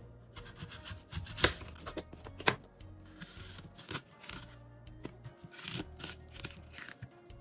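A knife cutting the top off a crisp Granny Smith apple, with two sharp knocks a second apart, then a melon baller scraping and scooping out the apple's core in short strokes. Soft background music plays underneath.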